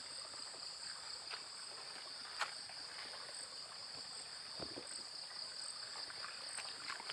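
Insects chirping steadily in a high, even chorus, with a few faint knocks.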